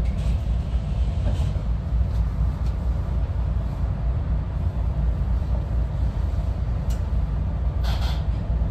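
Steady low rumble of a moving SEPTA Regional Rail train, with a brief rattle about eight seconds in.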